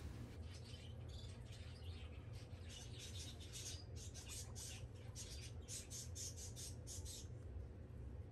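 Faint pet-store background: flurries of short, quick high-pitched sounds over a low steady hum. The flurries die down about seven seconds in.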